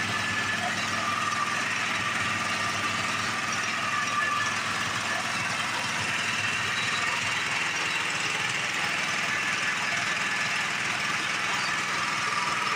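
Small gasoline engine driving a homemade lathe, running steadily at an even speed.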